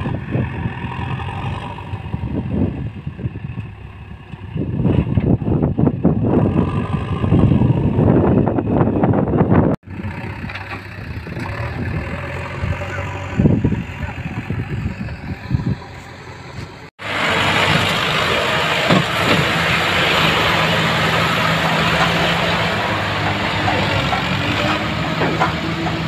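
Diesel engines running in three short cut clips: first a backhoe loader at work loading soil, then an Indo Farm 3055 DI turbo tractor pulling a fully overloaded trolley of soil with a steady, loud engine hum in the last clip.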